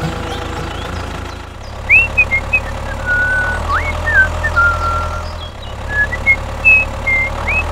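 A mini tractor's engine runs steadily with a low hum that shifts slightly about one and a half seconds in and again past five seconds. Short high chirping tones rise and fall over it from about two seconds in.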